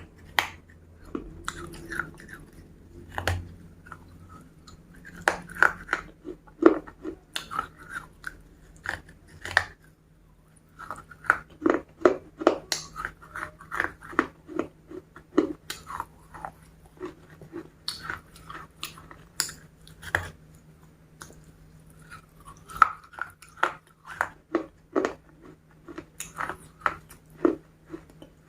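Close-up biting and chewing of crispy KFC fried chicken: sharp crunches in quick, irregular clusters, with a pause of about a second near ten seconds in.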